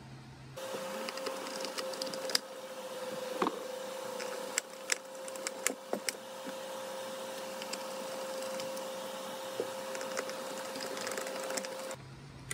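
Scattered clicks and light knocks of screws and plastic parts as screws are driven with a screwdriver into the plastic cleaner head of a Dyson DC40 vacuum. Under them runs a steady high hum that starts about a second in and cuts off abruptly near the end.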